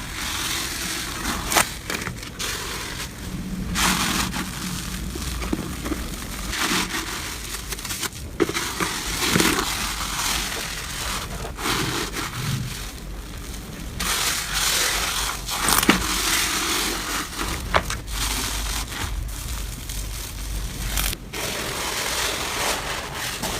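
Slime being squeezed and pressed by hand, with a continuous crackling, crunching sound and occasional sharp clicks. It comes in several short takes that cut off abruptly.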